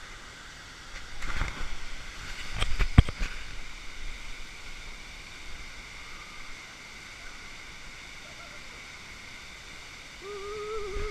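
Steady rush of falling water from a waterfall. Two loud bursts of noise come between one and three seconds in, the second ending in a sharp knock. Near the end a person gives one long held shout.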